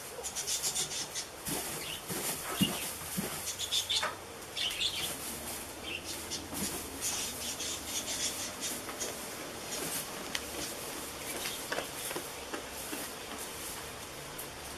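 Dry hay rustling and crackling as a goat in labour paws and treads in its hay bedding and kneels down into it, busiest in the first five seconds and quieter afterwards. A few short high chirps sound about four to five seconds in.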